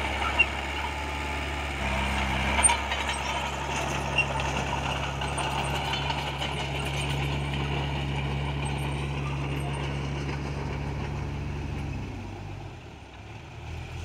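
Heavy diesel engines of a crawler bulldozer and a dump truck running steadily, with a few sharp knocks in the first few seconds. About twelve seconds in, the engine note drops lower and grows quieter.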